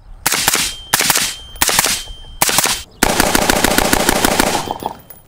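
Bear Creek Arsenal AR-15 in 5.56 fired rapidly: five strings of quick shots, four short strings and then a longer one of about two seconds starting about three seconds in.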